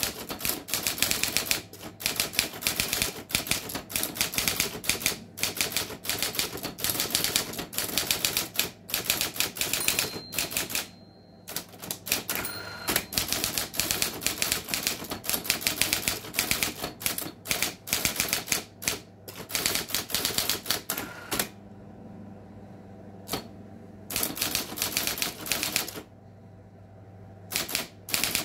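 Erika Präsident electric typewriter typing in fast runs of keystrokes, many clacks a second. In the few pauses its motor keeps running with a steady low hum.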